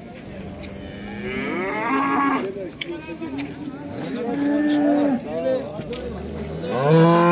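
Cattle mooing, several calls one after another, with the loudest long moo starting near the end.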